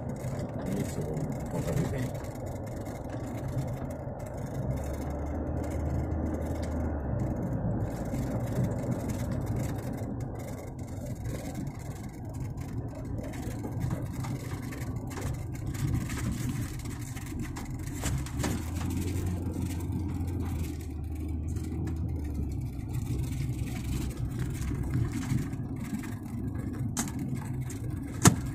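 Car engine and tyres heard from inside the cabin while driving on a dirt track: a steady low rumble, with a deeper drone swelling twice for a few seconds. A sharp click comes near the end.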